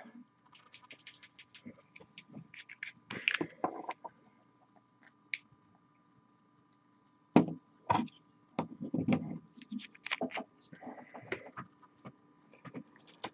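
Handling of a paint dropper bottle and brush on a painting desk: a quick run of small clicks near the start, then scattered knocks and taps, over a faint steady hum.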